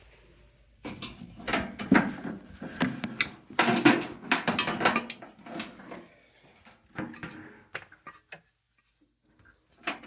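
Clattering and knocking of hard plastic and metal as an electric heater and its plug are handled and set up. The clatter is busiest in the first six seconds, then thins to a few scattered clicks.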